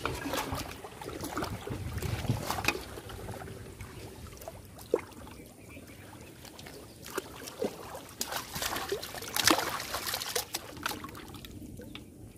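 River water sloshing and splashing around a person wading chest-deep and handling gear in the water, with a few sharp knocks, the loudest about five and nine and a half seconds in.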